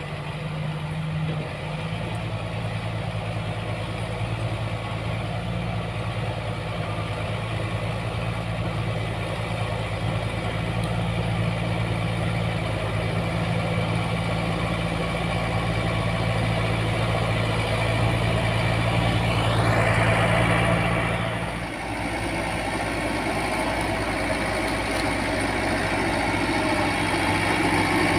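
Heavy diesel engine of road-works machinery running steadily at low revs. A rushing noise lasts about two seconds, starting some twenty seconds in.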